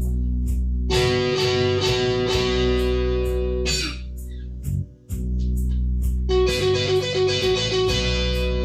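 1981 Ibanez Stratocaster-style electric guitar through a handmade overdrive pedal and a KFX Shaman amp into a 2x12 cabinet with Celestion Vintage 30 speakers, playing a blues lead improvisation of held notes and quick phrases, with a short break about five seconds in.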